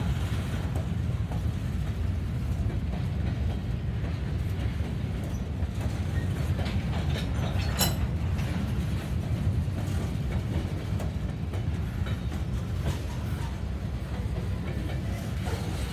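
CSX freight train's covered hopper cars rolling past: a steady low rumble of steel wheels on rail, with one sharp click about halfway through.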